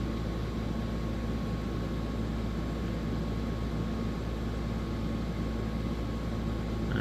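Steady background hiss with a low hum and a faint thin steady tone; unchanging room noise.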